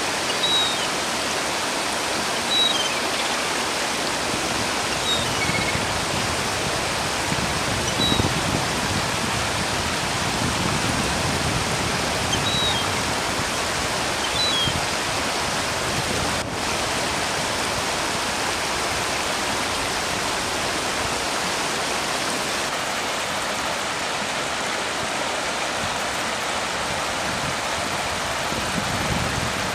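Shallow stream rushing over rocks, a steady wash of water noise. A few short, high chirps sound now and then in the first half.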